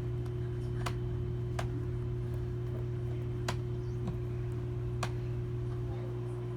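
A few sharp clicks, about four spread over the stretch, from a screwdriver working at the small screws that hold a toy remote control car in its box, over a steady low hum.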